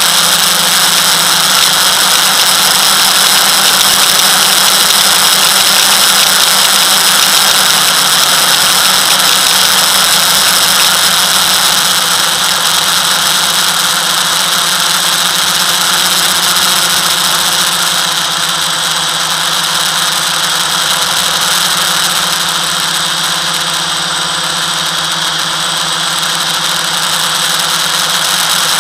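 FPV racing quadcopter's electric motors and propellers whining steadily in flight, with only slight swells in level as the throttle changes.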